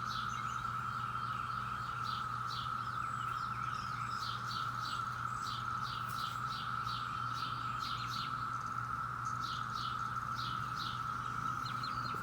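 Chorus of Brood X periodical cicadas: a steady, unbroken drone, with birds chirping repeatedly over it.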